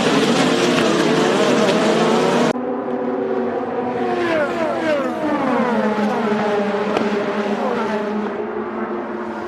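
Open-wheel IndyCar-type race car engines screaming past at high revs. About two and a half seconds in, the sound cuts abruptly to another pass, where several cars' engine notes slide down in pitch one after another.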